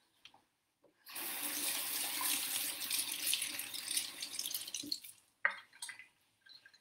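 Kitchen tap running as hands are rinsed under it: the water comes on about a second in and stops about four seconds later, followed by a couple of light knocks.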